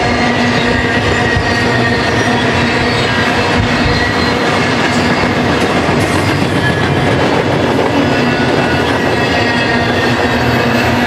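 Double-stack intermodal freight cars rolling past close by: a loud, steady rumble of steel wheels on rail, with a thin, steady whine from the wheels running through it.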